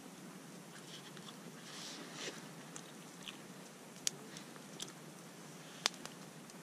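A person eating with a metal fork from a paper plate: soft chewing and scraping, with a few sharp clicks, the loudest about four and six seconds in.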